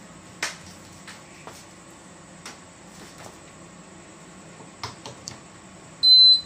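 A few light clicks of wires and connectors being handled, then near the end one short, loud, high-pitched electronic beep.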